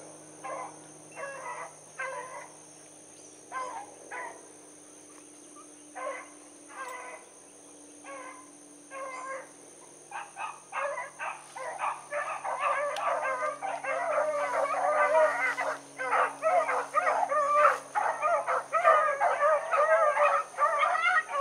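A pack of rabbit hounds baying on a rabbit's track: scattered single calls at first, then from about halfway many dogs giving voice together in a steady, overlapping chorus as the pack joins the chase.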